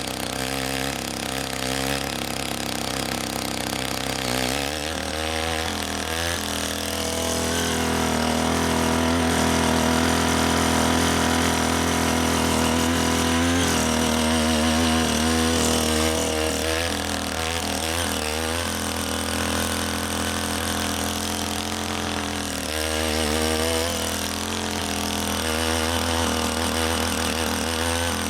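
Small engine of a walk-behind mini tiller running under load as its rotary tines churn waterlogged paddy soil. The engine speed keeps wavering up and down, and it is a little louder from about 8 to 16 seconds in.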